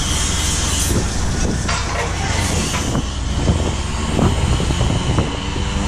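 Shrimp trawler's diesel engine running steadily under a hiss of wind and sea, with a few short knocks from the deck.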